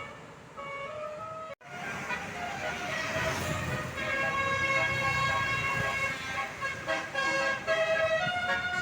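Bus 'telolet' Basuri-type musical air horn playing a tune of held notes that step up and down in pitch, with a brief gap about one and a half seconds in and louder from about four seconds in.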